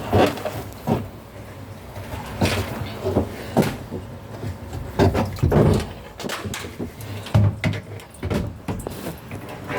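Irregular clunks and knocks of hard objects being handled and set down, about a dozen over several seconds.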